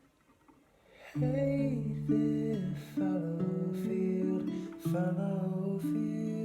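Acoustic guitar music, starting about a second in after a brief hush, with held notes and a strum roughly once a second.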